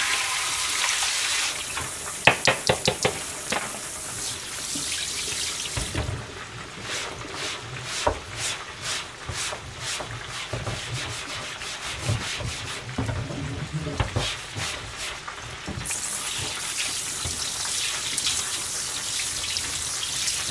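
Tap water running into a stainless-steel kitchen sink, with a quick clatter of knocks about two seconds in. Then the water stops and a cutting board is scrubbed with rapid rubbing strokes for about ten seconds. Near the end the water runs again as the board is rinsed.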